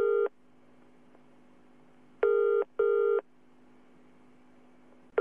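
Telephone ringing tone heard down the line while the call waits in a queue: the British-style double ring, pairs of short buzzy tones about every three seconds. The end of one double ring falls at the start, a full one comes about two seconds in, and the next begins at the very end.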